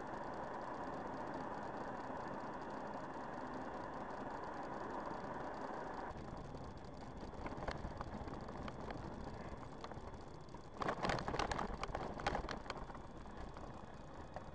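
Steady road and engine noise inside a car's cabin, which drops abruptly about six seconds in. Later, a quick flurry of clicks and knocks that rattle for about two seconds, the loudest part.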